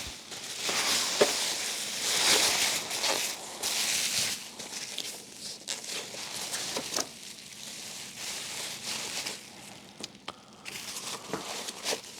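Packaging and equipment being handled: uneven rustling and crinkling with scattered light clicks and knocks, loudest in the first few seconds and quieter toward the end.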